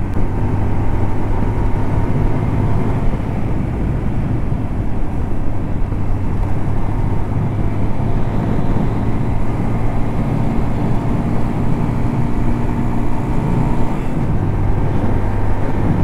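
Motorcycle engine running at road speed, with wind and road noise rushing over the microphone. The engine note softens for several seconds past the middle and strengthens again near the end.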